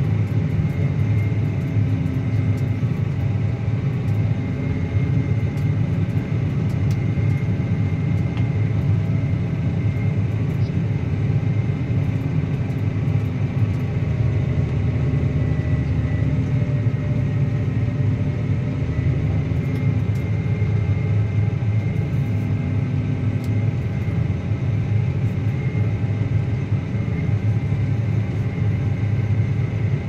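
Claas Axion 850 tractor's six-cylinder diesel engine running steadily under load, pulling a reversible plough through the soil. It gives a deep, even drone with a thin steady whine above it.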